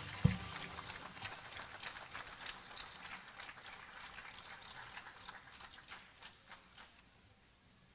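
An acoustic guitar's last chord dying away, a dull thump, then scattered applause from the audience that thins out and stops about seven seconds in.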